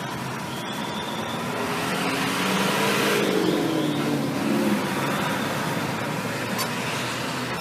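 Street traffic: a motor vehicle passes close by, its engine note swelling to a peak about three seconds in and dropping in pitch as it fades away.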